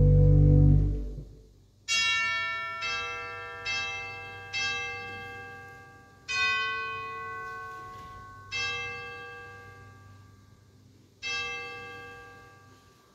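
A pipe organ chord holds and cuts off about a second in, followed by seven slow, bell-like chime notes of differing pitches, each struck and left to ring and fade away.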